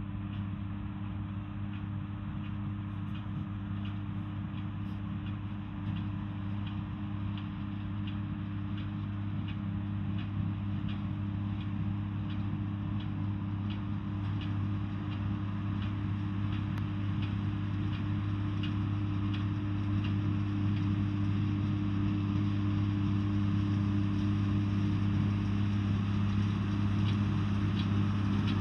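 John Deere 4040's six-cylinder diesel engine running steadily under load while pulling a small square baler, with the baler's regular clicking about twice a second. The sound grows gradually louder as the tractor approaches.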